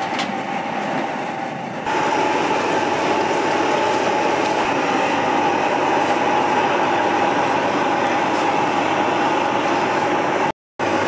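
Street-stall deep fryer: youtiao frying in hot oil give a steady sizzling, rushing noise, louder from about two seconds in, with a steady tone held over it. The sound drops out briefly near the end.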